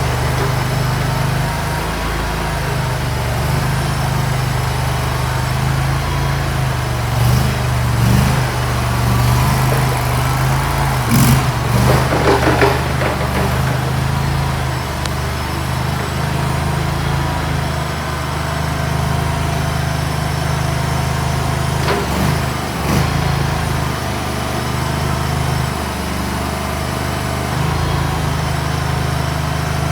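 Small gasoline engine of a Land Hero mini skid steer running steadily, getting louder for several seconds around the middle and briefly again about two-thirds of the way through.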